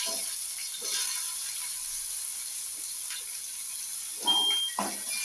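Potatoes frying in hot oil in a pan, giving a steady sizzle, with a few short knocks and scrapes about four to five seconds in.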